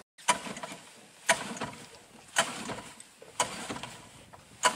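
Water splashing and slapping in regular strokes, about once a second, five times.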